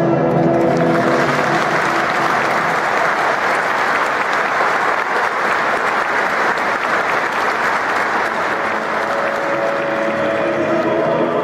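An audience applauding steadily after an operatic song, the singer's held final note dying away about a second in. Music and singing start again near the end.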